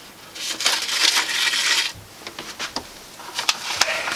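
A sheet of paper rustling and crackling as it is handled and turned over, followed by a scatter of light clicks and ticks.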